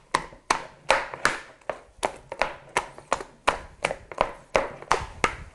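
Spätzle dough being beaten in a bowl with a hand and a dough scraper: rhythmic wet slaps, about three a second. It is the dough-beating stage that works out the lumps until the dough turns smooth and stretchy.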